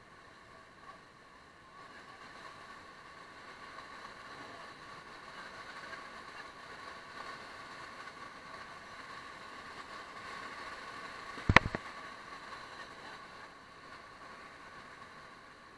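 Rushing whitewater of river rapids around an inflatable raft, a steady noise that swells a little through the middle. A single sharp knock about two-thirds of the way in is the loudest sound.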